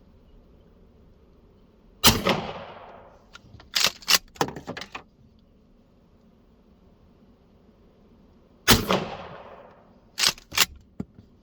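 Two 12-gauge shotgun slug shots about six and a half seconds apart, each a sharp report with a rolling tail of about a second. A second or two after each shot come a few fainter sharp snaps.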